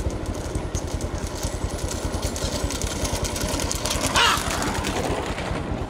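Motorcycle engine running steadily close by, with a fast even low pulse. A brief loud shout cuts in about four seconds in.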